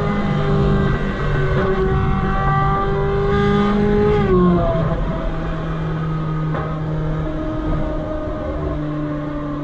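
Ferrari 458 Spider's V8 engine running at moderate revs while driving. Its pitch sags slowly, drops quickly about four seconds in, then creeps up again.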